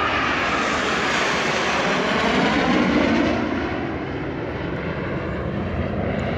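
Fixed-wing aircraft flying past at an airshow display, its engine noise swelling to a peak about three seconds in and then easing off, with a falling, sweeping pitch as it passes.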